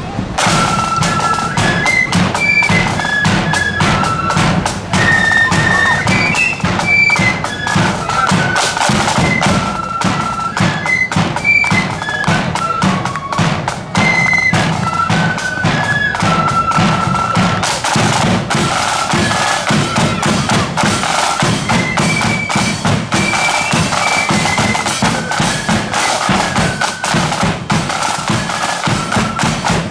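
Marching flute band playing a tune on the march: a high flute melody over side drums and a steady bass drum beat.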